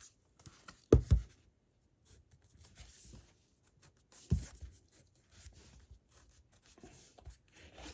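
Thin card slip being slid off a fabric-covered cardboard box: faint papery scraping and rubbing, with two louder thumps, about a second in and about four seconds in.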